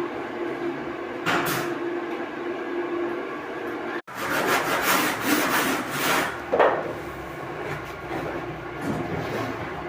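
Hand woodworking: wood rubbing and scraping in irregular strokes over a steady machine hum, with an abrupt break about four seconds in and the loudest scrape a little later.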